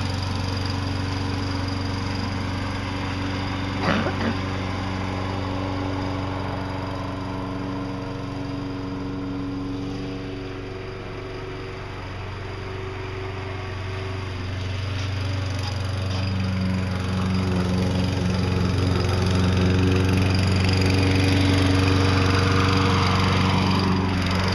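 Walk-behind self-propelled lawn mower's small engine running steadily under load as it pushes snow with an attached homemade plow blade, growing louder toward the end. Two sharp clicks come about four seconds in.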